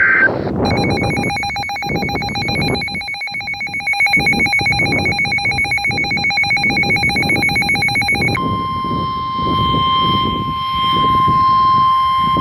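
Weather-radio alert tones: a rapidly warbling electronic alarm, then about eight seconds in a steady single-pitch tone near 1 kHz, the NOAA Weather Radio warning alarm tone that announces a new warning.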